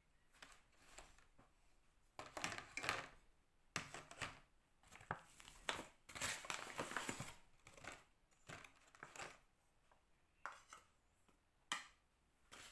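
Crinkling and rustling of a flour bag in irregular bursts as flour is scooped out with a measuring cup, with a few light sharp knocks.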